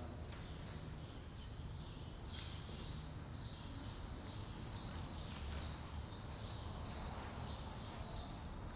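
A bird chirping faintly and repeatedly, roughly twice a second, over a steady low room hum.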